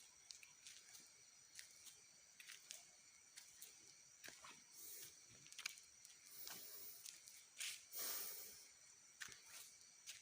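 Faint steady high-pitched chirring of night insects such as crickets, with scattered soft rustles and clicks of movement close by, the loudest rustle about eight seconds in.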